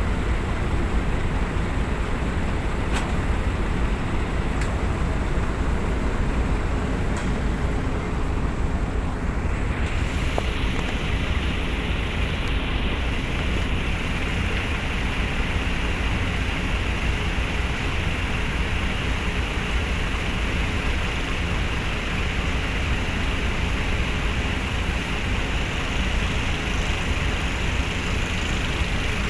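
Steady low engine rumble with a constant hiss over it, with no breaks or sudden events. About ten seconds in the hiss on top shifts, turning brighter and narrower.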